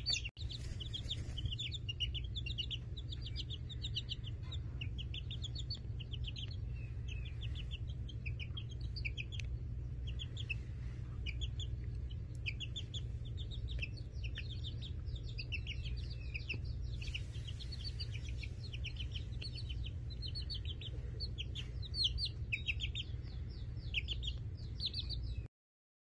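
Young chickens cheeping: quick runs of short, high-pitched peeps, over a steady low hum. The sound cuts off suddenly near the end.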